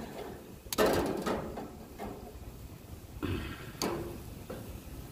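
Metal tongs clanking against the grill grate and skewers as chicken skewers are turned on a gas grill. There are a few sharp knocks, the loudest about a second in and several smaller ones near the end.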